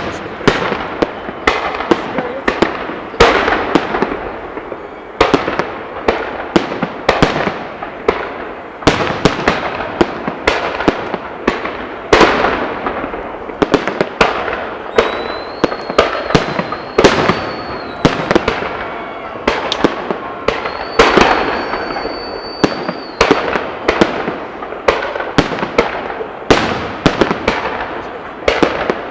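Fireworks salute: shells bursting in quick succession, several bangs a second, each with an echoing crackle. Twice in the middle a steady high whistle holds for about two seconds over the bursts.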